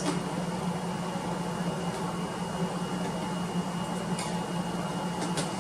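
Steady low hum of a running desktop computer's fans, with a thin constant high whine and a couple of faint clicks.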